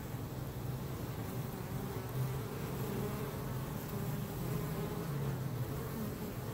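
Honey bees buzzing in flight around their hive: a steady, slightly wavering hum.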